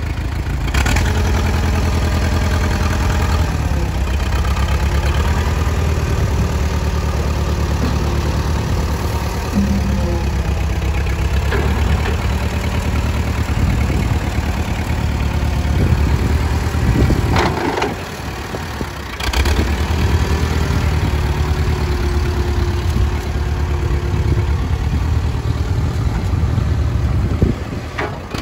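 Allis-Chalmers WD45 tractor engine running steadily, its speed shifting up and down as the Allied front loader's bucket is raised and the tractor is driven off. There are a few metallic clanks, and the engine sound drops briefly about two-thirds of the way through.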